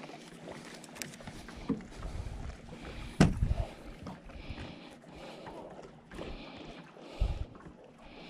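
Faint handling noises of fishing tackle: small clicks and rustles as line and a soft-plastic worm are rigged onto a hook. There is a sharp click about three seconds in and a dull bump about a second before the end.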